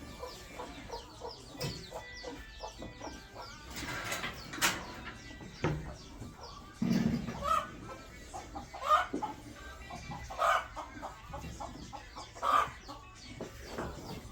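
Chickens clucking, with louder calls every second or two in the latter part.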